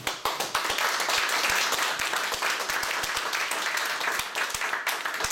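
A small audience applauding: a dense patter of hand claps that starts suddenly and thins out near the end.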